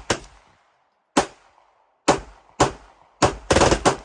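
Gunfire from a firearm: a single shot about a second in, two more shots about half a second apart, then a rapid string of shots near the end.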